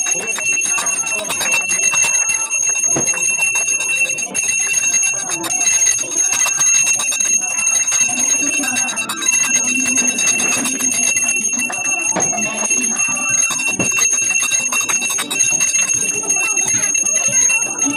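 Brass puja hand bell (ghanti) rung rapidly and continuously during a Hindu aarti, with a steady high ringing, and hands clapping along.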